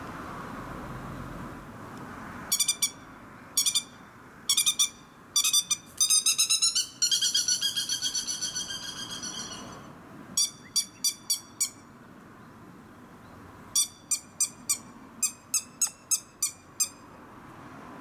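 Grey-headed lapwing calling with loud, sharp, ringing notes. The notes come singly and in short groups, then as a fast run of repeated notes that fades away, then as more spaced notes near the end.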